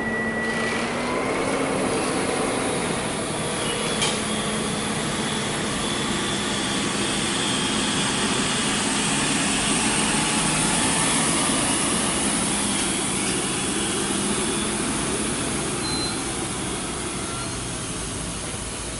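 Heavy diesel truck engine running as a tanker truck pulls slowly past close by, with a faint high whine over the engine; loudest about halfway through. A single sharp click about four seconds in.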